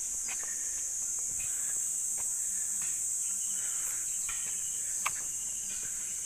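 Steady high-pitched drone of an insect chorus, with light footsteps on a concrete path and a single sharp tick about five seconds in.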